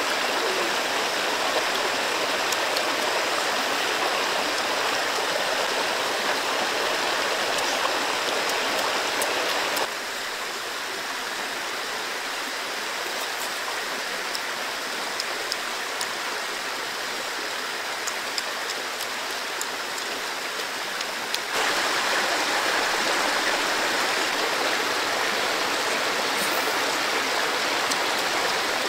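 Steady rushing of running water, like a nearby stream. It drops in level about ten seconds in and comes back up a little after twenty seconds.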